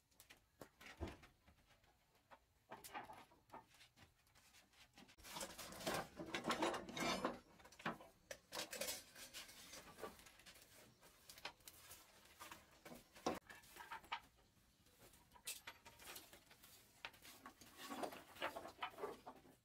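A broom sweeping wood shavings across wooden floorboards in irregular swishes and scrapes. There is a single sharp knock about a second in.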